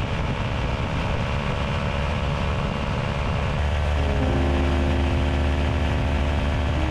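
Quad City Challenger II ultralight's engine and propeller droning steadily in flight, with rushing air noise. About halfway through, the engine note settles into a clearer, steady hum.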